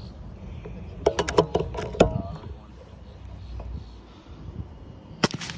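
An air rifle fires once near the end with a single sharp crack. About a second in there is a short cluster of sharp clicks mixed with voices.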